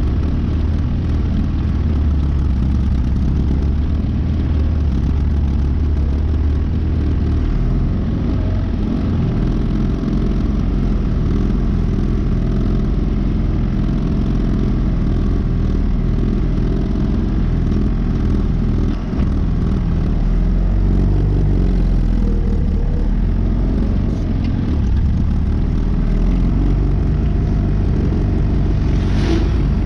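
Farm loader tractor's engine running steadily while the tractor drives along, heard close from the operator's seat.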